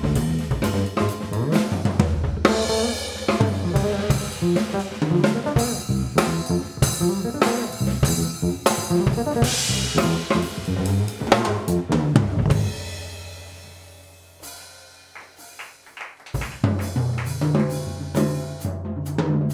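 Drum kit played solo: rapid snare, bass drum and tom strokes with cymbal crashes. About two-thirds through it falls to a quiet passage of sparse, softer hits, then the full playing comes back.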